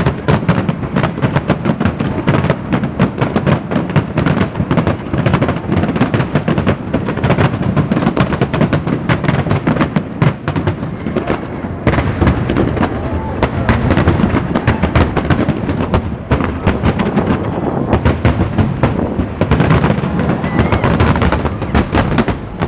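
Fireworks display: a dense, continuous barrage of bursts and crackles, many per second.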